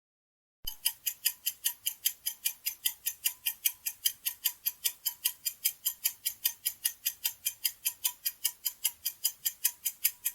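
Clock-like ticking of a countdown-timer sound effect, even ticks about four a second, starting a little under a second in.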